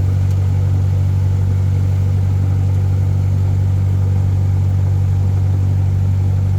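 Airplane engine running with a steady, unchanging low drone, heard from inside the cabin in flight.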